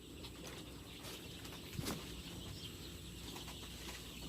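Faint sounds of eight-day-old layer chicks in a brooder: scattered high peeps and stirring, with one soft click a little under two seconds in.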